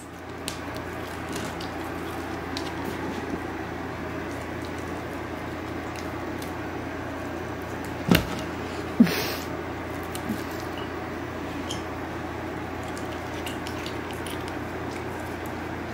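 Belgian Malinois licking and mouthing a raw steak: soft wet squishing and smacking with faint clicks, over a steady low hum. A single sharp thump comes about eight seconds in.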